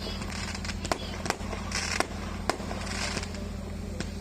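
Firecrackers and fireworks going off: about six sharp bangs at uneven spacing, with patches of hissing crackle between them over a steady low hum.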